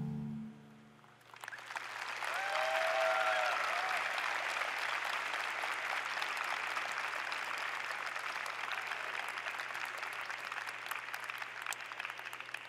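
The last notes of piano music fade out, and about a second and a half in an arena crowd breaks into steady applause. A brief high-pitched call from a single voice rises over the clapping about two seconds in.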